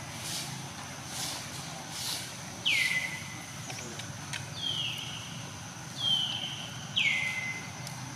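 Four short high animal calls, each sliding steeply down in pitch and then holding briefly, over a faint steady high whine.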